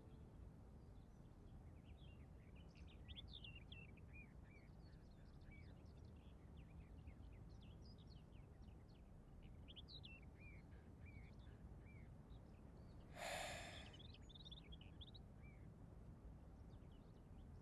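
Small birds chirping faintly and continually in quick, short rising and falling chirps over a low steady background hum, with one short hiss, louder than the birds, about thirteen seconds in.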